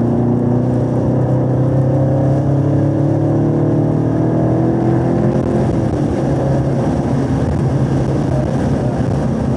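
A 2017 Camaro SS 1LE's 6.2-litre V8 accelerating in third gear, its pitch rising, then dropping as the car shifts up to fourth about six seconds in and pulling on steadily, heard inside the cabin.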